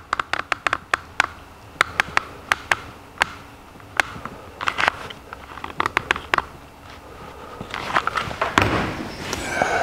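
Hand-held hot glue gun's trigger clicking repeatedly and irregularly as the glue stick is fed and a bead of glue is laid on a plywood strip. Near the end comes a longer rustling and scraping as the gun and wood are handled.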